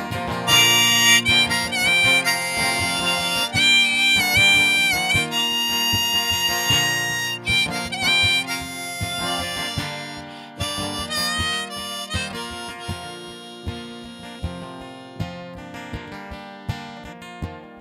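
Harmonica solo with bent, wavering notes over a strummed acoustic guitar and a cajon keeping time; the harmonica drops out a little past halfway, leaving guitar and cajon.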